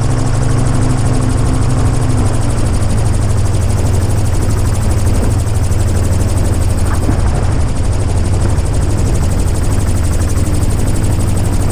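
Xenon gyroplane's engine and pusher propeller running steadily in flight, heard on board with wind rush. The engine note drops slightly about two seconds in and then holds.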